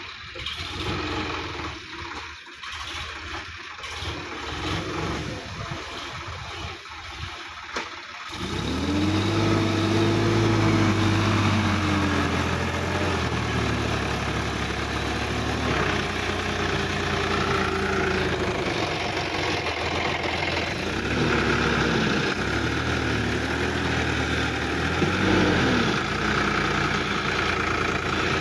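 Sonalika DI-50 RX tractor's diesel engine revving up and down as the tractor works through deep mud. For about the first eight seconds it is fainter and broken up. After that it is louder and clearer, its pitch rising and falling several times.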